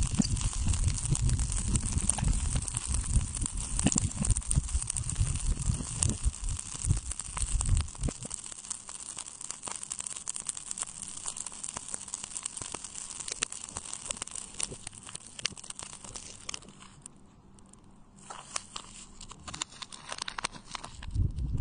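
Water beads in a plastic cup worked close to the microphone, giving a dense crackly clicking and squishing with a heavy low rumble. About eight seconds in the rumble drops away, leaving thinner clicking that fades briefly, then grows louder again near the end.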